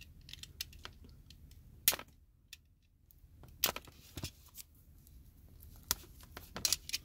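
Hands handling a shrink-wrapped deck of cards and a box cutter: a few sharp plastic clicks and crinkles, scattered, with the loudest just under two seconds in and a brief near-silent pause after it.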